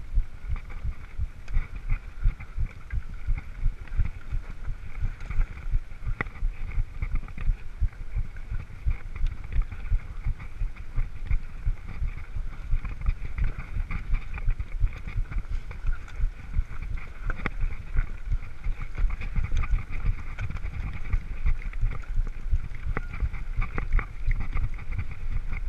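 Mountain bike riding over a rough, stony dirt track, heard through a camera carried on the rider: a constant low rumble full of quick, uneven jolts from the bumps, with a steadier rattle above it.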